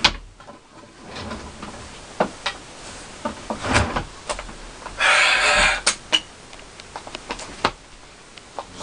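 Someone rummaging through a closet: scattered knocks and clicks of things being moved, with a longer sliding scrape about five seconds in.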